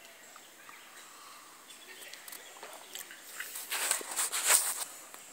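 Quiet outdoor background, then about three and a half seconds in, a second or so of loud rustling and crackling handling noise as the phone is swung about.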